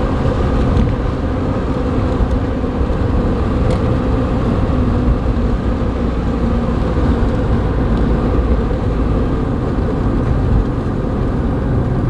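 Car being driven along a road, heard from inside the cabin: a steady rumble of engine, tyre and road noise that does not change.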